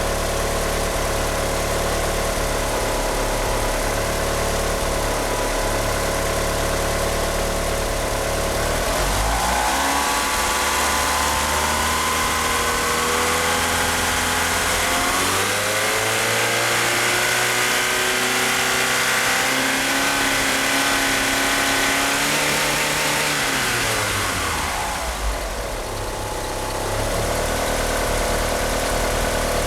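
Mitsubishi Eclipse GSX's 2.0-litre turbocharged 4G63 inline-four running rough on 850cc injectors. It idles, rises in engine speed in two steps partway through, holds there for several seconds, then drops back to idle near the end. The engine will not rev up freely with these injectors.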